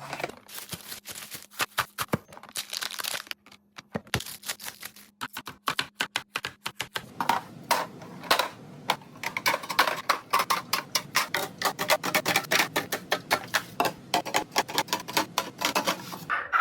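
Rapid, dense clicking and clattering of hard items being handled during a restock: sparser taps at first, then a fast run of clicks over a light rattle from about seven seconds in.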